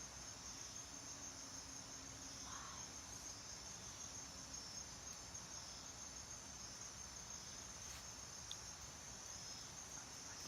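Night insect chorus of crickets, a steady high-pitched trilling that goes on without a break.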